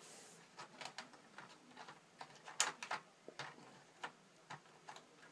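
Faint, irregular clicks and taps of hands handling a plastic model tank kit, picking at it to clean off leftover masking putty.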